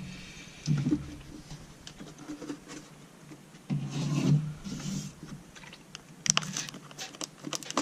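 Irregular rubbing and scratching from hands handling a plastic RC truck body and decal sheet, with a run of light clicks near the end.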